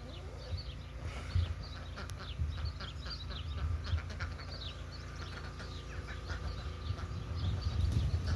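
Birds calling, a dense run of many short, high chirps and calls over a steady low rumble.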